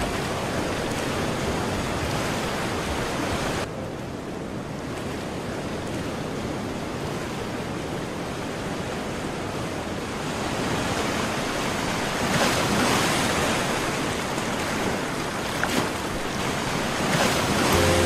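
Ocean surf: waves breaking and washing in as a steady rush. The level drops suddenly about four seconds in, and the surf swells louder around twelve seconds and again near the end.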